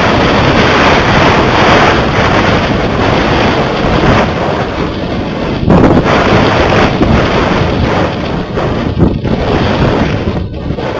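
Wind rushing over the microphone of a camera carried aloft by a kite, a loud steady buffeting noise with a stronger gust about six seconds in, turning choppier near the end.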